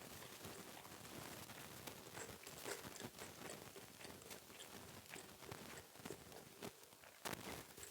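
Close-miked chewing, with irregular wet mouth clicks and smacks. One sharper click comes near the end.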